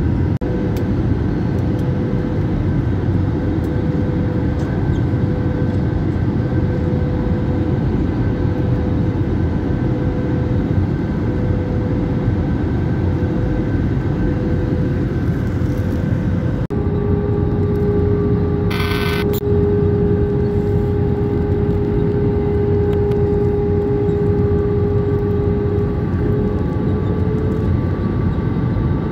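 Airliner cabin noise in flight: the jet engines' steady rushing drone with a whine on top. About two-thirds of the way through, the whine steps down a little in pitch as the engine power changes. Shortly after, there is a brief hiss.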